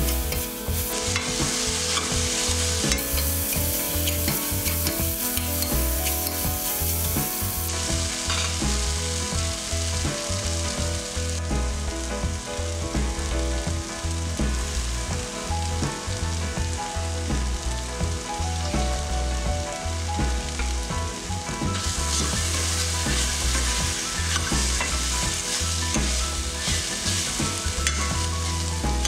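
Sliced carrot, capsicum and mushroom sizzling as they are stir-fried in a stainless steel kadai, with a metal ladle stirring and turning them. The sizzle eases through the middle and grows louder again about two-thirds of the way through.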